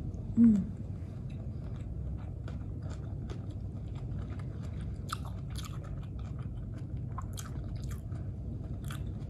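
Close-up chewing of a mouthful of cooked green vegetables, with many small crisp crunches and mouth clicks throughout. There is a short hummed vocal sound about half a second in.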